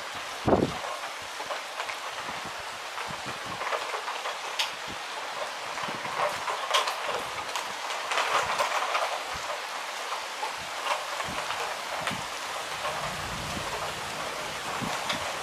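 Heavy rain falling steadily, with many drops ticking on a nearby hard surface. A sharp knock comes about half a second in.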